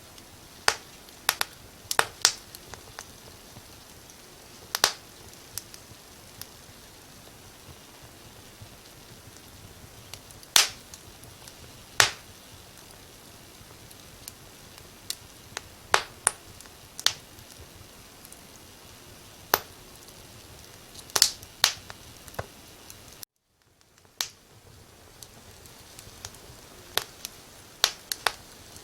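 Firewood burning in a fireplace, crackling with irregular sharp pops and snaps over a soft steady hiss. The sound cuts out completely for a moment about three-quarters of the way through.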